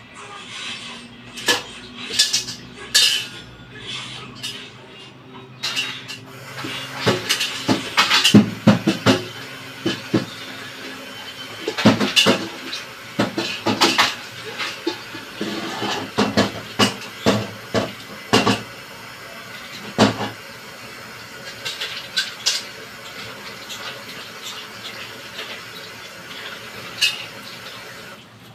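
Metal pots, pans and utensils clanking and scraping in irregular knocks, busiest in the middle and sparser near the end, over a steady hiss that starts a few seconds in.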